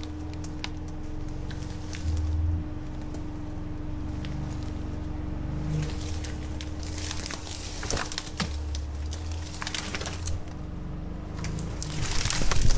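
Can-Am Defender HD10 side-by-side creeping along an overgrown trail, its engine running low and steady while branches scrape, brush and snap against it. The snapping and brushing comes thickest about seven seconds in and grows louder near the end.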